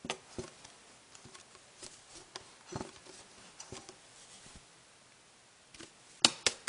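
Light scattered taps and clicks of a plastic shampoo bottle and container being handled, with two sharp clicks near the end.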